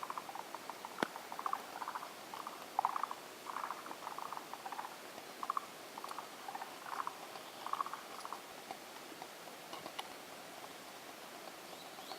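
Forest green tree frogs (Zhangixalus arboreus) calling in chorus: short, rapidly pulsed trilling croaks from several frogs, overlapping and repeating every second or so. A sharp click sounds about a second in and another near ten seconds.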